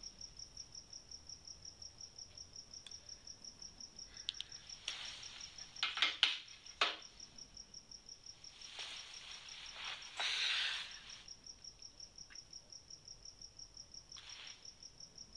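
Crickets chirping steadily at about four pulses a second, with a few soft hissing rustles, about a second each, in the middle and near the end.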